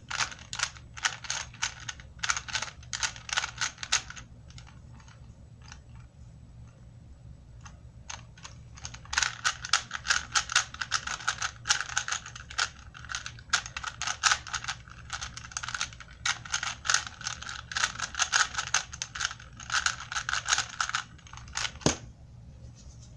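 Rapid plastic clicking and clacking of a Rubik's-brand cube's layers being turned, in quick runs of moves: a burst of about four seconds, a few scattered turns, then a long unbroken run of turning that stops about two seconds before the end. A faint steady low hum runs underneath.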